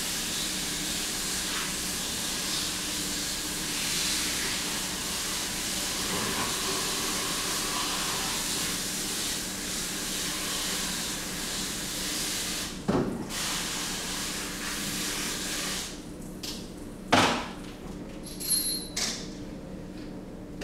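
A steady, even hiss that cuts off suddenly near the end, followed by a few sharp knocks, one with a brief ringing tone.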